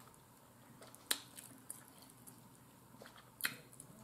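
Quiet eating sounds from baked chicken: a few short, soft wet clicks, the loudest about a second in and another near the end.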